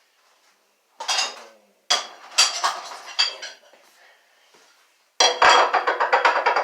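Metal cutlery and dishes clattering as they are handled: a few separate clinks and rattles, then a dense, loud rattle of clattering utensils near the end.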